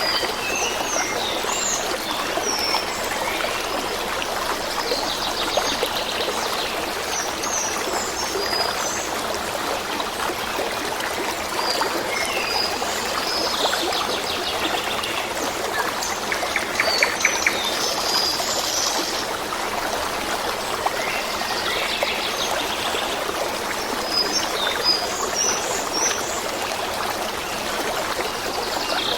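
A stream running steadily with a continuous trickle, with birds chirping and twittering on and off above it.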